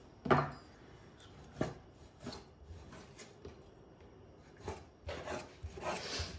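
Kitchen knife cutting raw topside beef into shreds on a bamboo cutting board: a few separate knocks of the blade on the wood, the first the loudest, then a quicker run of scraping and rubbing strokes near the end.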